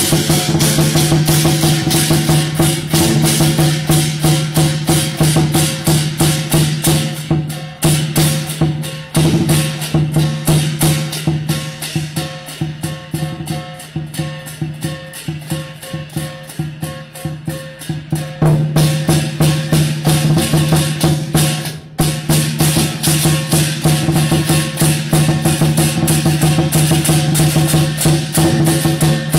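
Instrumental music with a fast, steady percussion beat over sustained low notes. The music pauses briefly a few times.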